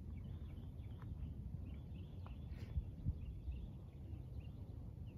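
Songbirds chirping faintly over a steady low rumble, with two soft thumps close together about three seconds in.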